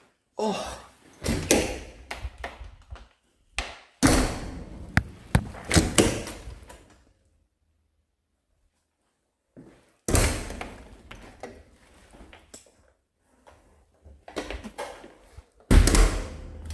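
A run of loud thuds, knocks and scraping in a small room, in two bursts with a pause of silence of a few seconds in the middle.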